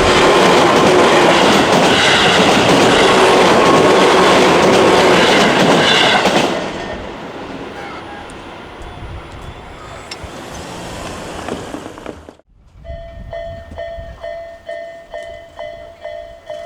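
A Tobu Tojo Line electric train passes over a level crossing, its wheels clattering loudly on the rails for about six seconds before the noise fades away. After a sudden cut near the end, the crossing's electronic warning bell rings in steady pulses, about two a second.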